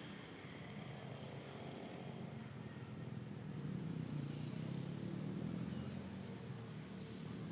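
A motor vehicle's engine running steadily, a low hum that gets somewhat louder about halfway through.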